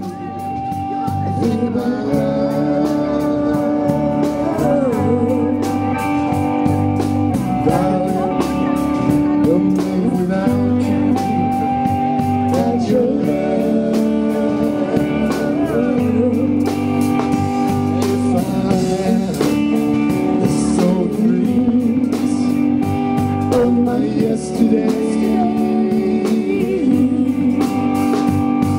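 Live band playing blues-rock: electric guitars, bass guitar and drum kit with a lead melody over them, loud and steady with a regular beat.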